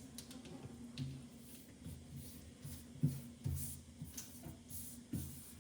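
Soft handling sounds with a few light knocks, about a second in, near the middle and near the end, over a faint low steady hum.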